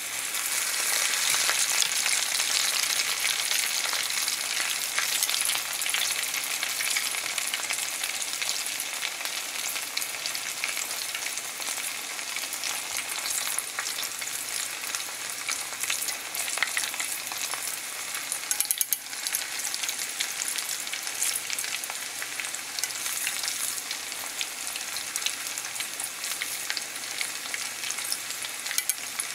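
Starch-battered pork loin pieces deep-frying in hot oil: a dense, steady sizzle and crackle of bubbling oil, loudest in the first few seconds after the pieces go in and easing a little after.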